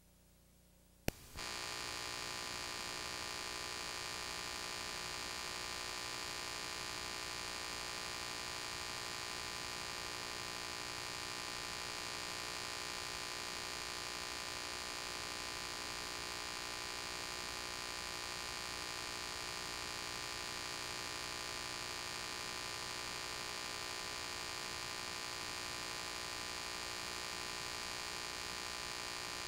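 A sharp click about a second in, then steady electrical mains hum with many overtones and a hiss, unchanging throughout.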